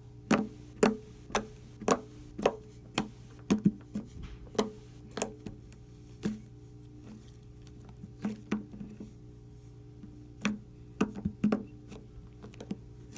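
Orange slime being squeezed and stretched between fingers, giving sharp pops and clicks at irregular intervals, with a lull in the middle, over a steady low hum.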